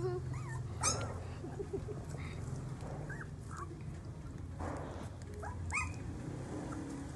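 Young puppies whining and yelping in short high cries that rise and fall. The sharpest yelp comes about a second in, and there are further whimpers near the middle and again later, over a steady low hum.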